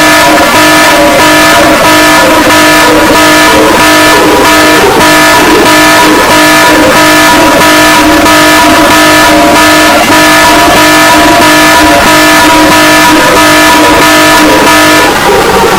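Emergency alert system alarm tone, very loud and harsh: several steady tones held together, with a fast, even pulsing through them, sliding down in pitch near the end.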